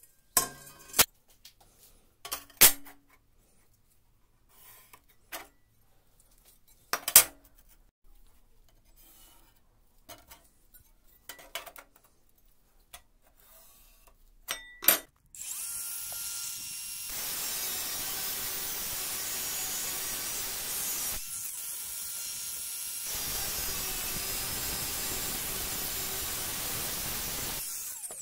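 A steel circular saw blade and tools knocked and clicked about on a wooden table for the first half. About halfway through, an angle grinder starts cutting into the steel blade with a loud, steady noise, easing briefly between cuts and stopping near the end.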